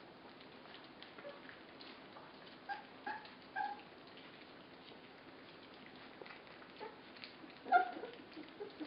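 Border collie puppies eating from shared plates: faint clicking of lapping and chewing, with short high whimpering squeaks three times about three seconds in and again, loudest, near the end.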